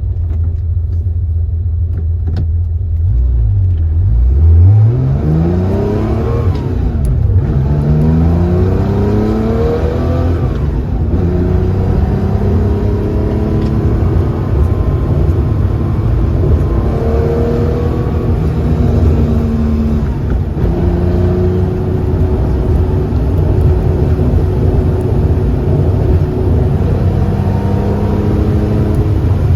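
Porsche 911 built to 2.7 RS spec, its air-cooled flat-six running steadily, then accelerating hard from about three seconds in, the pitch climbing and dropping back at each of several gear changes. After that it settles into a steady cruise.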